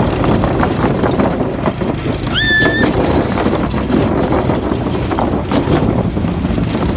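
Go-kart engine running at speed, its tyres clattering over the joints of a wooden plank track. A short high squeal rises and then holds about two and a half seconds in.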